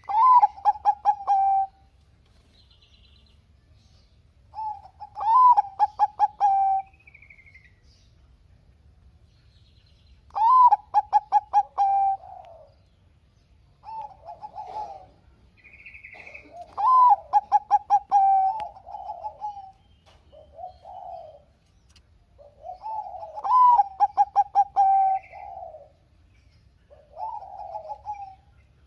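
Zebra dove (perkutut, Bangkok song strain) singing. Each phrase is a quick run of staccato coos that opens with a rising note, and a loud phrase comes about every six seconds with shorter, softer phrases in between.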